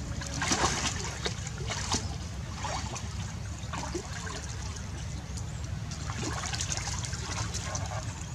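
Pond water splashing and sloshing irregularly as several macaques swim and paddle through it, with a steady low rumble underneath.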